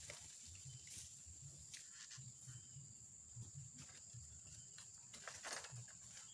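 Near silence: faint outdoor ambience with a steady thin high tone and a few soft crackles and rustles.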